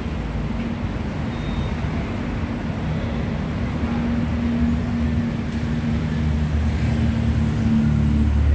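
Street traffic: a nearby motor vehicle's engine running steadily. Its hum stands out in the second half, and a deeper rumble builds near the end.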